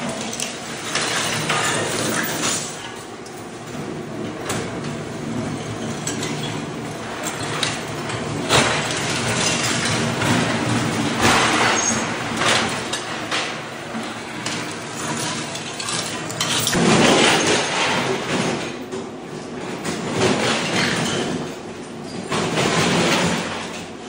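Floor scraper machine driving its blade under ceramic tile and thinset mortar on a concrete slab: irregular surges of grinding and crunching as tile breaks up, with clinking of tile shards over a steady motor hum.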